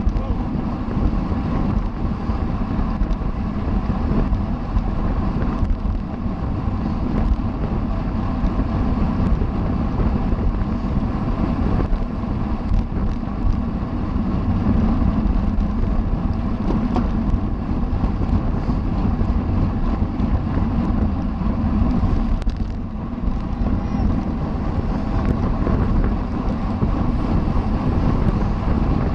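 Steady wind rush buffeting a camera microphone on a road bicycle at race speed, with a low rumble underneath from the tyres and drivetrain.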